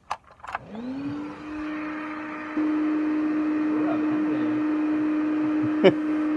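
An air bed's electric pump switched on with a couple of clicks, its hum rising in pitch over about a second, then running steadily as it inflates the mattress. It gets louder a couple of seconds in, and a sharp click comes near the end.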